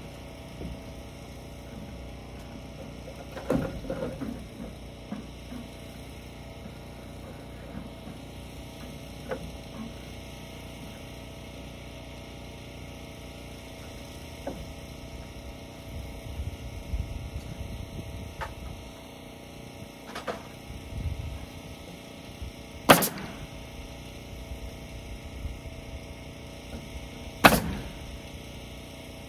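Lap siding being nailed up on a gable end: scattered knocks and clatter, then two sharp cracks of nailing about four and a half seconds apart near the end, over a steady hum.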